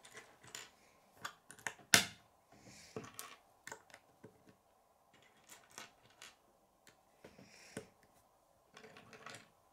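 K'nex plastic pieces clicking and tapping as gears, rods and connectors are set down on a wooden tabletop and snapped together: scattered irregular clicks, the sharpest about two seconds in, with soft handling rustle between them.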